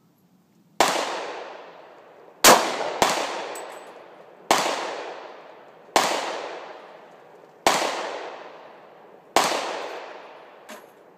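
Handgun fired seven times at a slow, uneven pace, each shot sharp and loud with an echo trailing off before the next.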